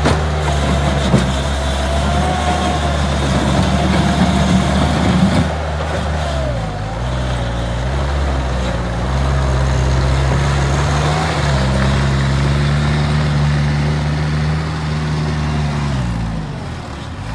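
Bobcat T180 compact track loader's diesel engine running, its pitch dipping about six seconds in, rising again near the middle and dropping near the end as engine speed changes. A faint whine that glides up and down runs above it.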